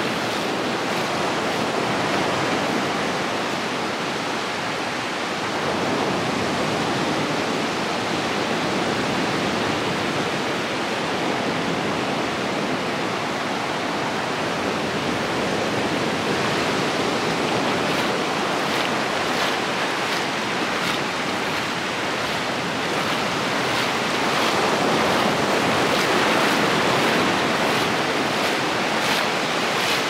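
Surf breaking offshore and small waves washing up over the sand at the water's edge: a steady rushing that swells louder in the last few seconds.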